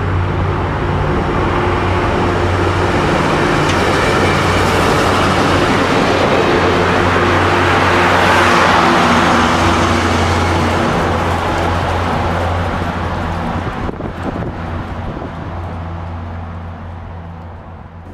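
Diesel-hauled train passing: the steady drone of a BL20GH diesel locomotive with wheels rumbling on the rails, growing louder to a peak about halfway through, then fading as the train moves away.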